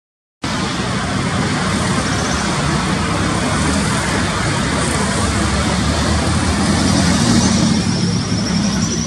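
Airbus A320-family jet engines running as the airliner taxis: a steady jet rumble and hiss that starts abruptly about half a second in, with a faint high whine rising slightly near the end.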